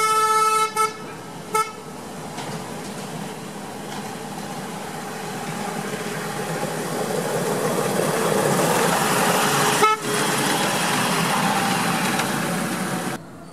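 Horn of a miniature electric railcar giving one pitched toot, then a short second toot. This is followed by the railcar's running noise on the narrow-gauge track, which grows louder as it approaches and passes, with a sharp click about ten seconds in. The sound cuts off abruptly near the end.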